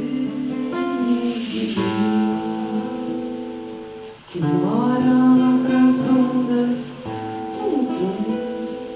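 Acoustic music: plucked guitar with sustained sung or played notes that glide between pitches, dipping briefly about four seconds in before coming back louder.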